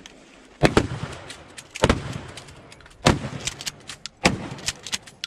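Mossberg 500 12-gauge pump shotgun firing into a wooden breaching door: four loud shots about a second apart, with the metal clack of the pump being worked between them.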